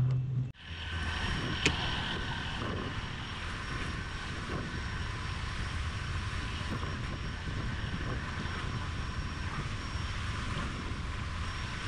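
A boat engine running steadily, a constant drone that starts after a brief gap about half a second in.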